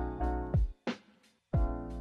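Background music with a beat and held chords. It drops out briefly about a second in, then comes back.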